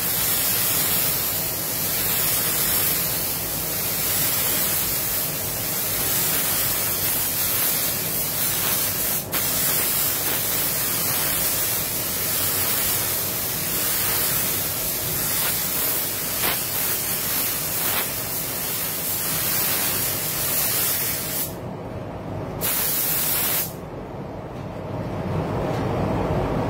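Air spray gun (Iwata Supernova LS400) hissing steadily as it atomises clear coat onto a car panel. Near the end the hiss breaks off, comes back for about a second, then stops, leaving a low steady rumble.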